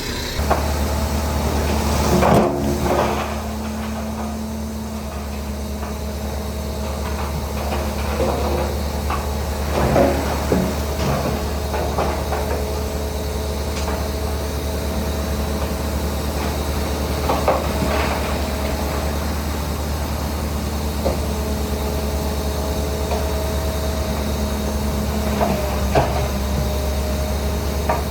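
Heavy diesel construction machine running steadily, with loud intermittent metallic clanks and knocks a handful of times.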